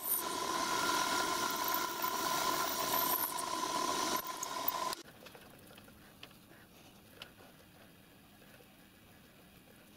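Milling machine running with an end mill cutting a slot in a metal coupler block: a steady motor whine over the cutting noise, which stops abruptly about halfway through. After that only a few faint clicks are heard.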